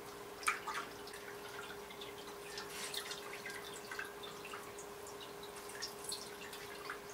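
Water dripping in small irregular drops and light clicks, the sharpest about half a second in, over a steady low hum.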